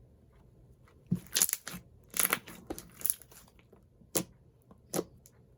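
Close handling noise: a handful of short, sharp crinkling, tearing-like crackles, starting about a second in and recurring every second or so.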